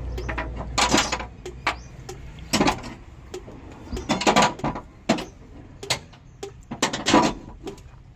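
Short mechanical rattling or scraping noises, about five irregular bursts each under half a second, over a low hum that fades about a second in.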